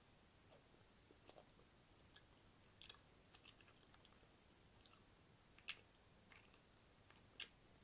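Wet mouth sounds very close to a microphone: scattered, irregular wet clicks and smacks, mostly faint, with a few louder ones.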